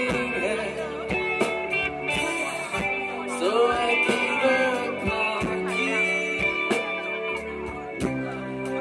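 Live rock band playing: electric guitars, keyboard and drums, with a sung lead vocal over the top.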